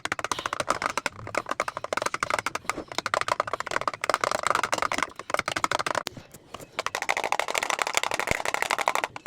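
A spoon rapidly beating a raw egg in a bowl, a fast run of clicking taps against the bowl, with a brief pause a little after six seconds before the beating resumes.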